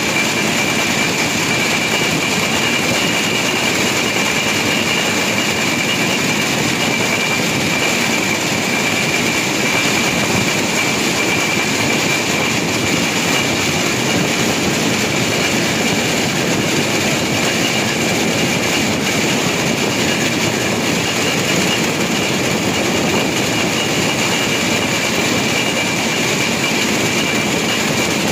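Motorised rail inspection car running steadily along the track: a constant rush of running noise from the car and its wheels on the rails, with a steady high whine over it.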